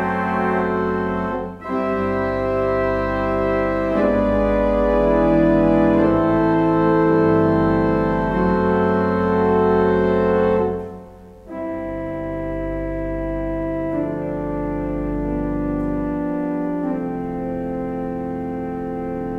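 Church organ playing held hymn-like chords, with short breaks between phrases about a second and a half in and again about eleven seconds in; after the second break it plays on more softly.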